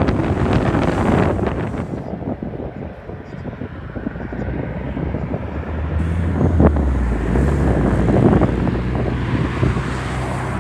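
Wind buffeting the microphone, then a low aircraft engine rumble with a hiss that builds from about halfway through and stays loud near the end.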